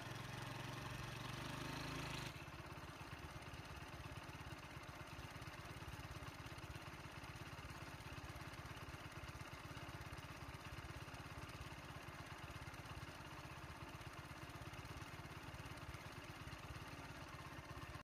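A vehicle engine idling steadily and faintly, with a louder low hum for the first two seconds that cuts off abruptly.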